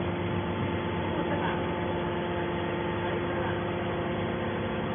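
Hydraulic aluminium-can baler's motor and pump running with a steady hum of constant pitch.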